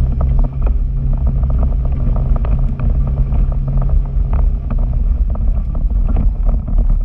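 Arctic Cat Wildcat Sport 700 side-by-side's twin-cylinder engine running steadily as it drives over a rocky creek bed, with frequent short knocks and rattles. The engine's hum drops a little about five seconds in.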